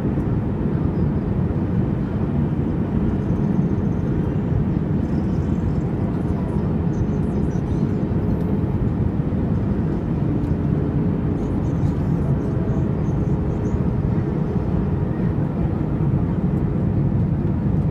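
Airliner engine and airflow noise: a steady, even low roar with a faint constant hum.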